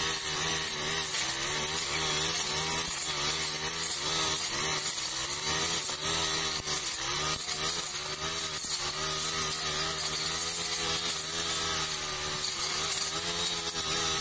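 Backpack brush cutter with a Honda GX four-stroke engine running at high speed while its blade cuts through thick overgrown brush. The engine pitch keeps dipping and recovering as the blade takes the load.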